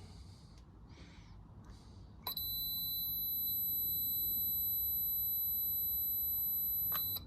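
Multimeter continuity beeper sounding one steady high beep for about five seconds, starting a little over two seconds in and cutting off sharply: the probes are bridging a cable joined in a connector block, and the beep signals a good, closed connection through the joint. A soft handling rustle comes before it.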